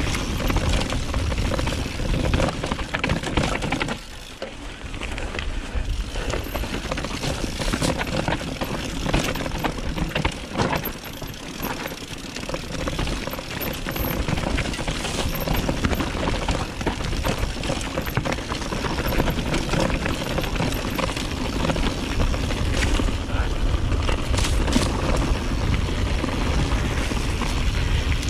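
Wind rushing over the camera microphone and a mountain bike rattling over a rough trail, with short knocks as it hits bumps. The rush eases briefly about four seconds in.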